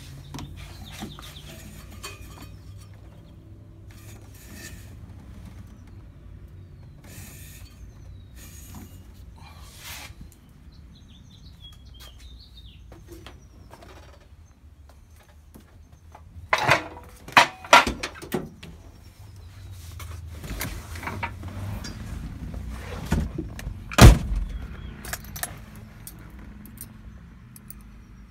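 A car door being opened and shut: a few sharp clacks about two-thirds of the way through, then a single loud door slam a few seconds later. A low steady hum runs underneath.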